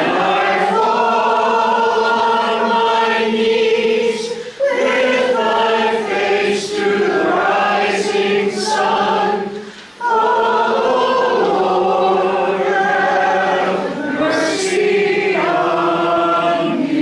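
Church congregation singing together in long held notes, in phrases broken by short pauses about four and a half and ten seconds in.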